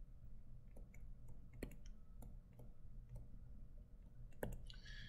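Faint, irregular ticks and taps of a stylus pen on a tablet screen while words are handwritten, about a dozen clicks with the loudest about four and a half seconds in.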